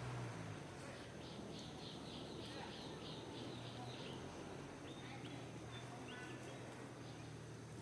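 Animal chirping: a run of about nine short, high chirps at roughly three a second, then a few longer, steadier high calls, over a low steady hum.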